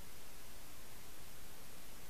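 Steady, even hiss with no distinct events: the self-noise of an underwater camera's microphone in its housing.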